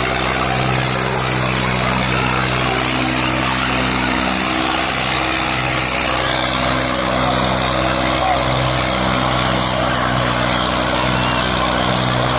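Tractor diesel engine running steadily under heavy load, its pitch holding level with a slow, gentle pulsing.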